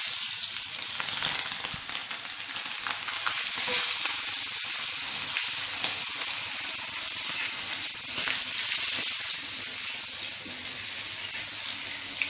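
Chilies, shallots and garlic frying in hot oil in a steel wok: a steady, dense sizzling hiss with small crackles and the odd click of a metal spatula stirring. The sizzle swells a little about three and a half seconds in.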